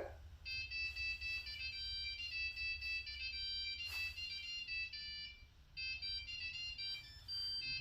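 Nova Nebula lathe's electronic controller playing its power-up tune: a melody of quick, high beeping notes, with a short break a little past five seconds before the tune goes on.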